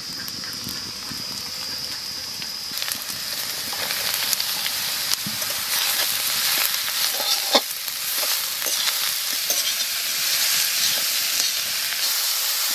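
Wild mushrooms, onion and dried red chillies sizzling in hot mustard oil in an aluminium wok, stirred with a spoon that scrapes and taps against the pan. The sizzle grows louder about three seconds in.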